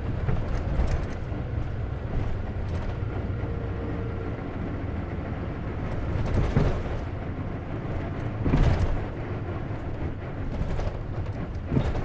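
Inside a moving Isuzu KC-LV380N city bus with a manual gearbox: steady low engine and road rumble, broken by a few short, louder knocks and rattles.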